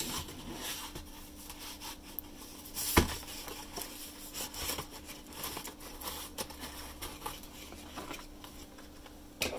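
Cardboard model-kit boxes being handled and slid across a tabletop: light rustling and tapping, with a sharp knock about three seconds in and another near the end.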